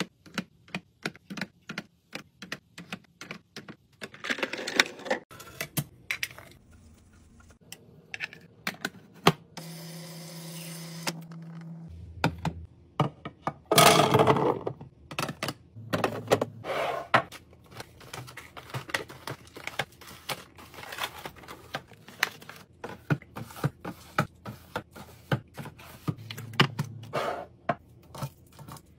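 Rapid clicking, tapping and clattering of containers, bottles and lids being handled and set down while restocking a fridge. A brief steady hum comes about ten seconds in, and a louder rustling burst a few seconds later.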